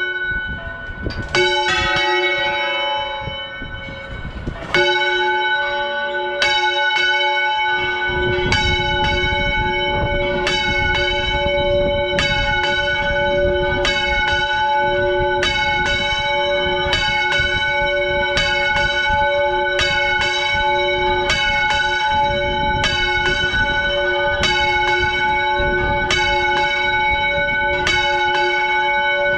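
Church bell swung full circle on its counterweighted yoke, Valencian-style volteo. A few spaced strokes come first, then the clapper strikes in a steady rhythm about once a second, each stroke ringing on, over a low rumble.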